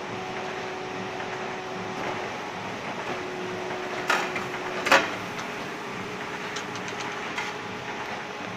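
Elba SA 9011-E bag-making machine running with a steady mechanical noise and a faint hum, with two loud clacks about four and five seconds in and a few lighter clicks a couple of seconds later.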